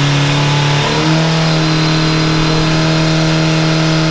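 Pickup truck engine held at high, steady revs during a tyre burnout, over the hiss of spinning rear tyres; the revs step up a little about a second in and then hold.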